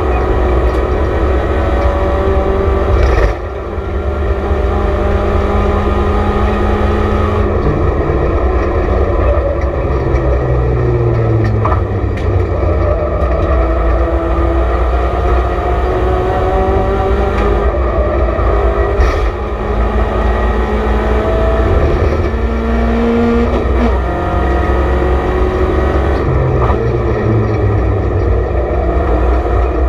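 BMW Compact Cup race car's engine heard from inside the cabin at racing speed, its pitch climbing as it revs up through the gears. The level and pitch drop sharply about three seconds in and again about nineteen seconds in as it comes off the throttle, then it climbs again.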